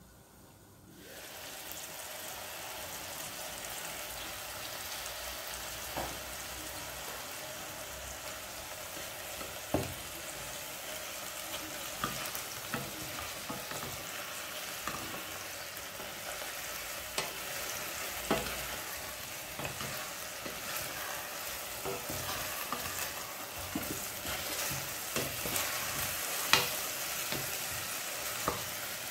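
Chicken frying in oil with garlic and onion in a pan over a low flame: a steady sizzle that swells about a second in, with scattered sharp clicks and knocks, the loudest near the end.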